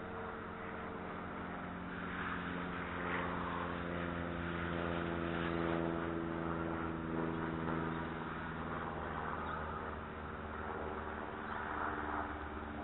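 A distant engine droning steadily, its pitch drifting slowly up and down.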